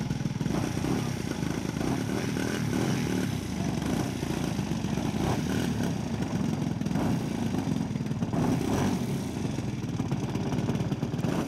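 A ZDZ-210 two-stroke gasoline engine on a 47% scale DR-109 radio-controlled plane, running steadily at low throttle with a 34x14 propeller, the level swelling and easing slightly as it is taxied.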